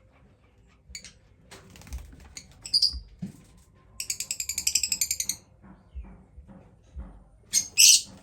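Small pet parrots chirping: a short high chirp about three seconds in, then a rapid high chatter of about fifteen pulses a second lasting over a second, and loud sharp chirps near the end.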